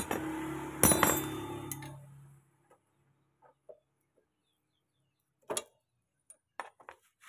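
Metal clinks and light clicks of a motorcycle's chain and front drive sprocket being worked off the output shaft by hand, loudest about a second in. A steady low hum stops about two seconds in.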